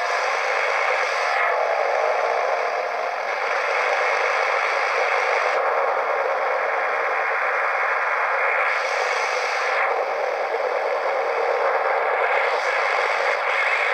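Static hiss from a portable radio's speaker, with no station coming through. It is a steady rushing noise that grows brighter and duller a few times.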